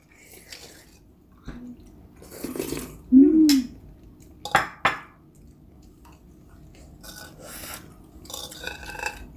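A metal spoon clinks a few times against a ceramic bowl during a mouthful of stretchy melted cheese, with eating noises from the mouth. About three seconds in comes a short hummed "mm" of pleasure that rises and falls in pitch.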